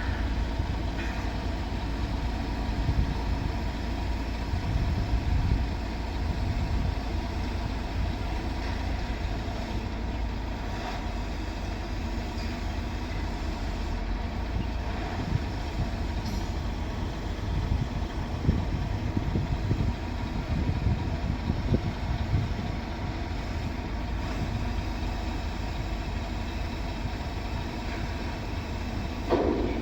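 Diesel engine of heavy construction machinery running steadily with a low rumble.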